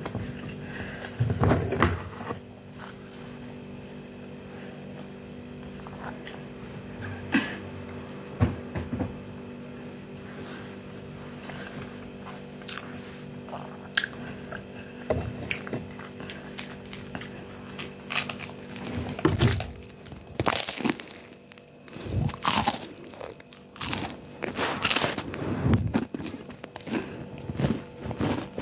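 Close-up mouth sounds of someone eating a toasted ham-and-cheese sandwich: chewing with crisp crunches of the toasted bread, a few scattered at first, then coming thick and loud over the last third as he bites into it again.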